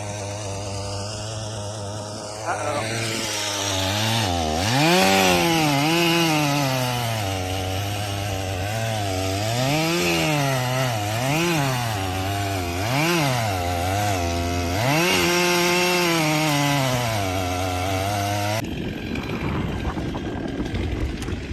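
Chainsaw engine on an Alaskan chainsaw mill running while slabbing a log, its pitch rising and falling again and again as it works through the cut. It cuts off suddenly near the end, leaving a steady hiss.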